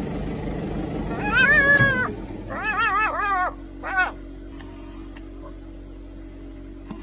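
An animal's high, wavering whining calls: one long call about a second in, then a quick run of three or four shorter calls, ending about four seconds in.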